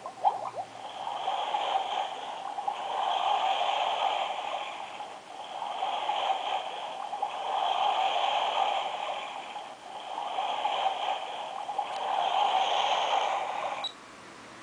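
Built-in nature-sound track of a star-projector alarm clock: recorded running water played through the clock's small speaker, swelling and easing every couple of seconds, then cutting off abruptly near the end.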